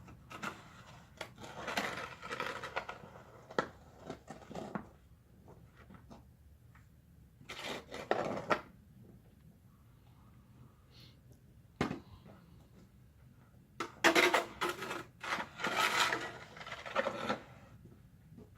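Irregular bursts of clattering and scraping, like objects being handled, in several clusters with quiet gaps between them.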